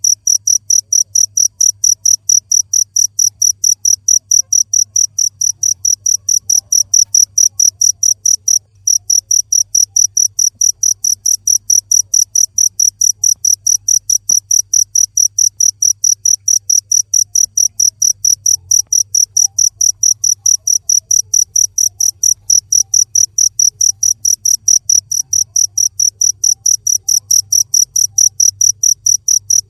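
Cricket chirping in a rapid, evenly spaced, high-pitched train of pulses, with a brief pause about nine seconds in.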